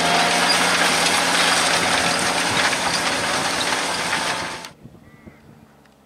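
Fendt 820 Vario tractor's six-cylinder diesel engine running hard under the load of a six-furrow plough, a loud steady drone. About four and a half seconds in it cuts off abruptly, leaving a faint distant background with a few small ticks.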